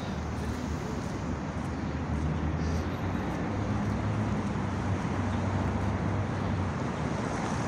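Road traffic noise: a steady wash with a vehicle's low engine rumble growing louder from about two seconds in and falling away near the end.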